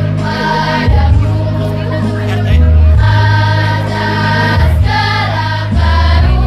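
A school choir singing over an accompaniment with strong bass notes that change every second or two.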